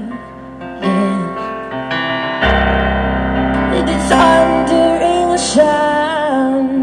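A woman singing a slow ballad with vibrato over chords played on a Kurzweil SP2X digital stage piano. A fuller chord with a deep bass note comes in about two and a half seconds in.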